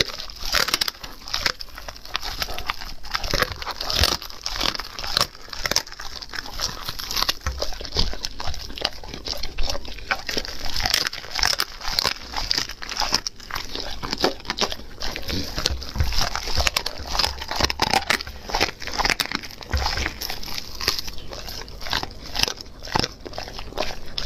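German Shepherd chewing and tearing at roasted meat on the bone, picked up close by a small microphone: dense, irregular wet chewing, crunching and crackling.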